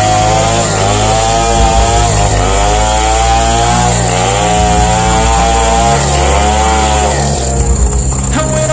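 Modified Stihl chainsaw with a long bar running under load while sawing wood. Its engine pitch dips and recovers about once a second as it bogs in the cut.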